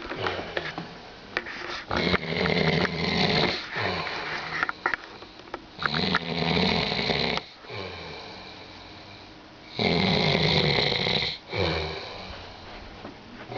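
A man snoring heavily, with loud snores roughly every four seconds and quieter breathing sounds between them.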